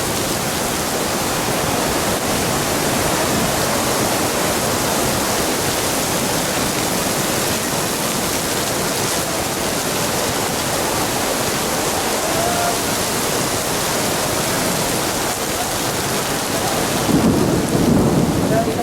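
Heavy rain pouring down in a steady, dense hiss. Near the end a louder low rumble rises for about a second and a half.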